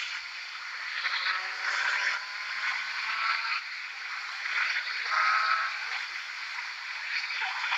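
Wind noise on a helmet-mounted camera riding a sport motorcycle at highway speed, swelling and easing every second or two. The bike's engine runs underneath in a faint, slowly rising tone.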